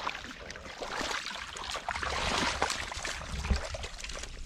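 Irregular splashing and sloshing of shallow muddy water as hands grope through it for catfish, with water running off a catfish lifted out over a metal basin.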